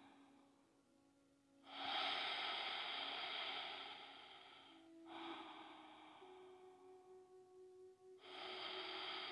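A woman breathing slowly and deeply close to a clip-on microphone. There are three long breaths of about three seconds each, the first starting about a second and a half in.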